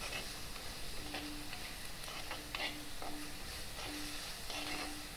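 Chopped onions, green chillies and curry leaves sizzling in hot oil in an earthenware clay pot, with a spatula stirring and scraping them around the pot in short strokes while they sauté.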